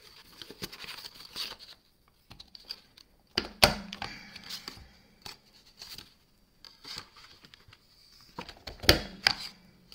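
Card stock rustling as it is fed into a corner-rounder punch, with two loud snaps about five seconds apart as the punch is pressed down to round off corners.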